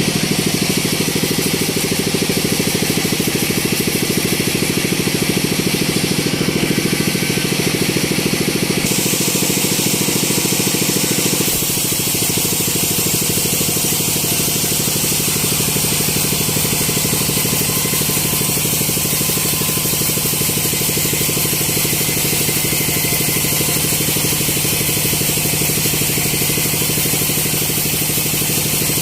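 Sawmill machinery running with a steady engine-like drone. About nine seconds in a higher hiss comes up, and a couple of seconds later the level drops slightly.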